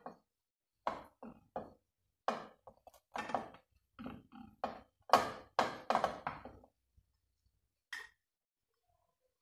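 Irregular soft knocks and clinks of ladyfinger biscuits being handled and set down in a glass baking dish, with a last tap about eight seconds in.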